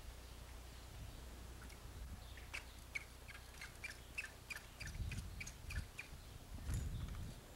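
A bird chirping: a quick, even series of short high chirps, about three or four a second, lasting a few seconds. Two low rumbles come later, the second and louder one near the end.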